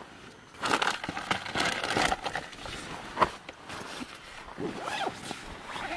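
Irregular rustling and handling noises, with a few sharp clicks, from someone moving about inside a wet tent. The busiest rustling is in the first couple of seconds, and there is a single sharp click a little past the middle.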